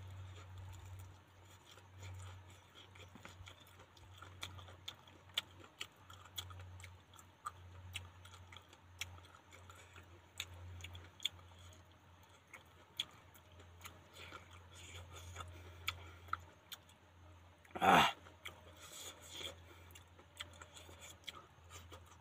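A person eating by hand, close to the microphone: chewing with many short wet clicks and smacks, over a steady low hum. One brief, louder sound with falling pitch comes about three-quarters of the way through.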